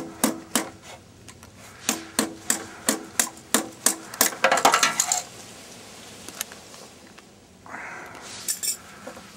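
Hammer blows on metal at a furnace blower motor, about three a second with a ringing clank. A couple of strikes come near the start, then after a pause a longer run ends in a quick flurry of blows about halfway through. A brief scraping noise follows near the end.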